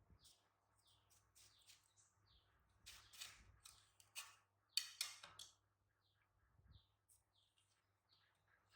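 Faint, short high chirps repeating every half second or so, with a few brief louder rustles or scrapes between about three and five and a half seconds in.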